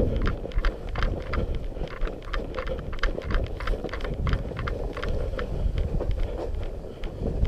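Footsteps crunching in snow, an irregular run of short crunches a few times a second, over low wind rumble on the camera microphone.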